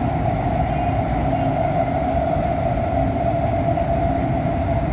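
Doha Metro train running, heard from inside the carriage: a steady low rumble with a constant mid-pitched hum.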